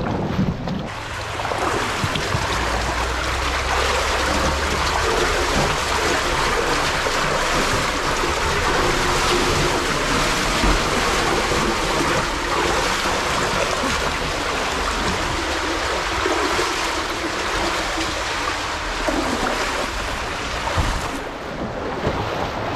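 Shallow brook water rushing steadily over an obstruction, a loud even rush that starts about a second in and stops shortly before the end.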